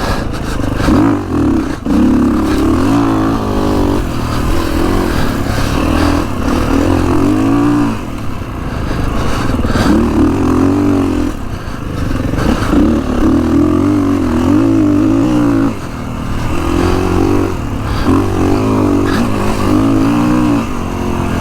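Kawasaki KX450X's single-cylinder four-stroke engine running while the bike is ridden, its revs rising and falling over and over as the throttle is opened and rolled off.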